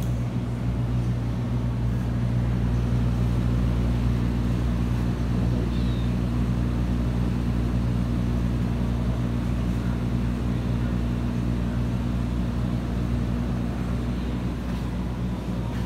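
Steady low drone of running machinery in a steel fabrication shop, made of several fixed low tones that hold unchanged throughout.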